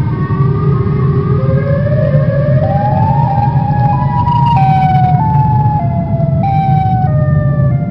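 Dark horror ambience: a steady low rumbling drone under a pitched, siren-like tone that slides slowly upward for about four seconds, then steps between held notes.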